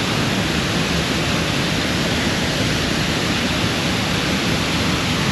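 A powerful waterfall close by: loud, steady, unbroken rushing water.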